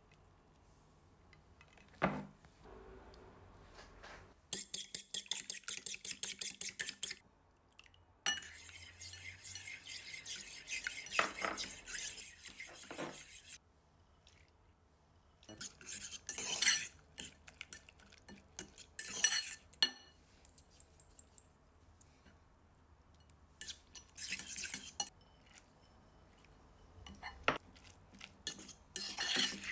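A metal fork beating egg and cream in a ceramic bowl: long runs of fast, rhythmic clinking of the fork against the bowl. Later come shorter bouts of clinking and scraping as grated mozzarella is stirred into the mixture.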